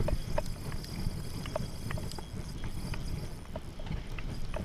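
Spinning reel being cranked to bring in a hooked fish: light clicks about two a second over a steady rumble of wind and water.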